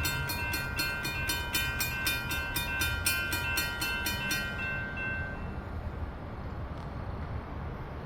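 Grade-crossing bell ringing rapidly, about four strikes a second, over the low rumble of an approaching freight train's GE diesel locomotives. The bell stops about halfway through while the locomotive rumble carries on.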